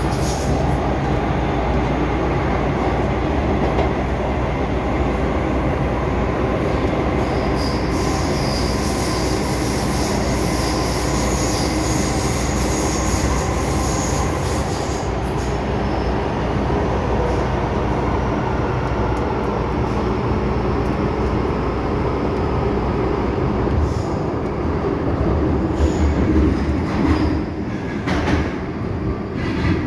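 MTR Island Line M-Train heard from inside a passenger car as it runs: a steady rumble of wheels and running gear. High-pitched wheel squeal comes in from about a quarter of the way in to about halfway, and a few short knocks come near the end.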